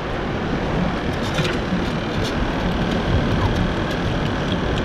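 Steady wind rumbling on the microphone, with a few faint light clicks.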